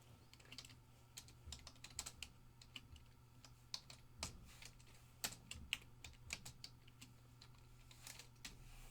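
Typing on a computer keyboard: faint, irregular key clicks, some in quick runs, over a low steady hum.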